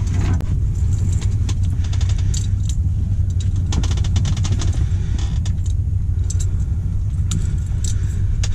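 Light metallic clicks and rattles of a metal hook remover being worked to free a hook from a fish's mouth, over a loud, steady low hum.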